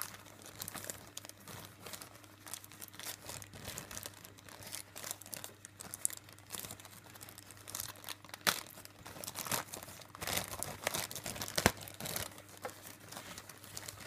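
Thin plastic bag crinkling and rustling as it is handled and opened by hand, in irregular crackles with a few sharper snaps around the middle and near the end.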